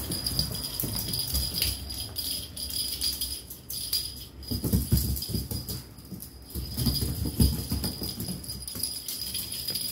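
Kittens pouncing and scrambling on a fabric sofa cushion after a feather wand toy, with soft thumps about halfway through and again a couple of seconds later, over a bright, steady jingling.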